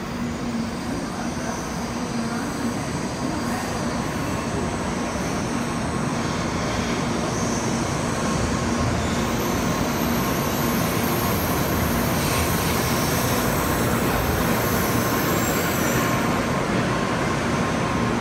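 N700-series Shinkansen train running into the platform as it slows to stop: a steady rushing rumble of the passing cars that grows gradually louder, with a constant low hum underneath.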